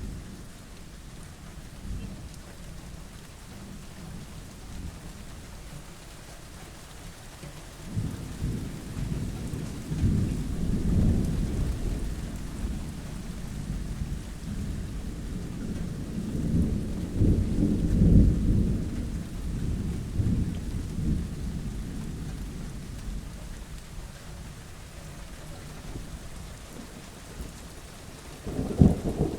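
Steady rain with rolling thunder: a long low rumble builds about a quarter of the way in, is loudest a little past the middle and dies away, and another peal starts near the end.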